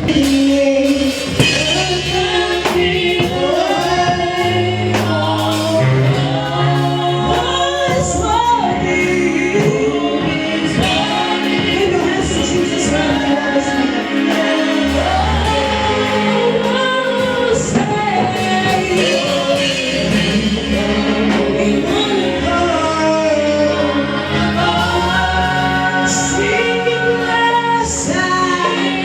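Live gospel worship song: a female worship leader and a choir singing together over instrumental accompaniment with sustained bass notes.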